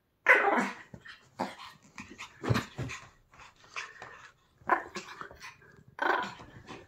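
Pomeranian rubbing and rolling on a wool blanket to dry herself, with an irregular string of short noises from the dog and the rustling blanket. The loudest comes just after the start, and another comes near the end.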